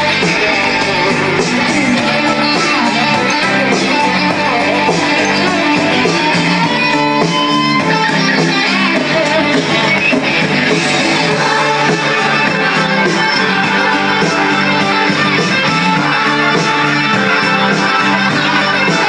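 Song playing steadily, led by strummed guitar.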